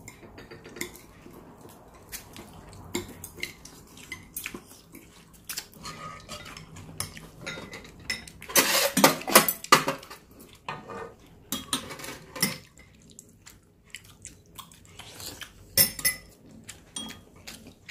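Metal ladle and spoons clinking and scraping against a nonstick pan and bowls as stew is ladled out, with scattered clinks throughout, a run of louder clatter about nine seconds in and another sharp clink near the end.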